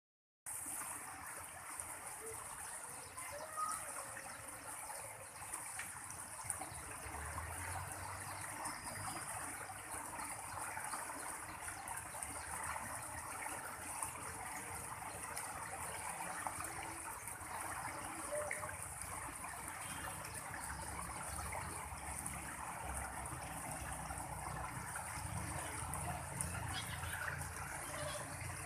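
Stream water trickling steadily, with a few brief, faint bird chirps now and then.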